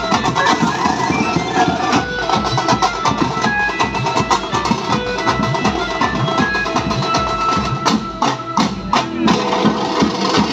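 Banjo-party band music: an Indian banjo plays a melody of short held notes over fast, dense drumming.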